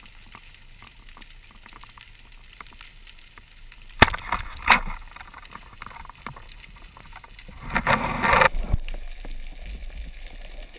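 Speargun fired underwater: a sharp crack about four seconds in, with a second hit just after, over faint steady underwater crackling. About eight seconds in comes a louder rush of noise lasting under a second.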